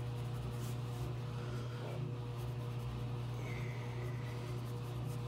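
Colour pencil scratching in short strokes on newsprint, over a steady low hum from a laundry machine running in the background.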